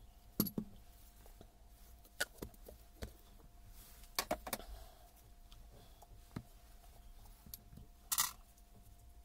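Metal parts of a Hilti TE700 clinking and knocking as they are handled and set down on a workbench: scattered sharp clicks, a small cluster a little past four seconds, and a short scrape about eight seconds in.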